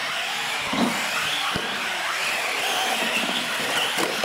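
Radio-controlled UTV trucks racing on a concrete floor: their small motors whine, rising and falling in pitch with the throttle, over tyre noise. There are a few sharp knocks.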